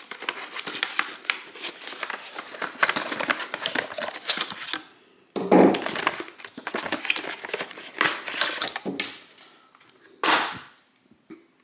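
Packaging being opened and handled by hand to unpack a set of pliers: dense crackling and clicking, a dull knock about five seconds in, and a sharp rustle near the end.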